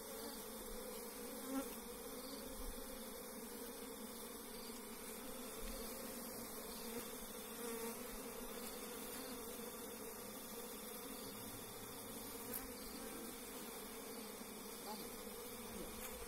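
A colony of bees buzzing steadily as a bare hand works among them at their wooden hive box: a low, even hum of many wings.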